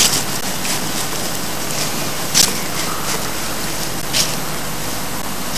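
Steady outdoor rushing noise with a few short knocks, one right at the start, one about two and a half seconds in and one about four seconds in.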